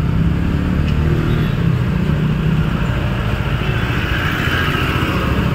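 Motorcycle engine running at low speed as the bike rides along, a steady low rumble; a hiss swells about four seconds in.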